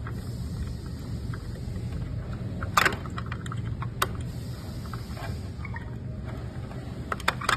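Allen key turning screws in a treadmill's plastic cover: a few sharp metal clicks and taps, the loudest about three seconds in and a small cluster near the end, over a steady low rumble.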